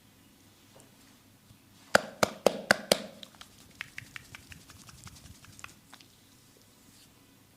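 Massage percussion by hand: five loud slaps on the body in quick, even succession, about four a second, followed by a run of lighter, quicker taps and clicks that fade out.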